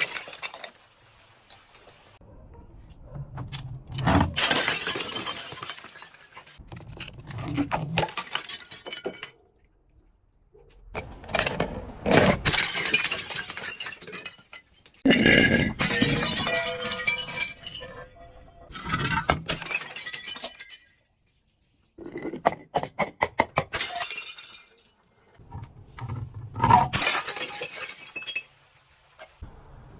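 Glass bottles breaking and being crushed, in about seven separate bursts of crunching and tinkling shards a few seconds apart, one near the middle ringing briefly.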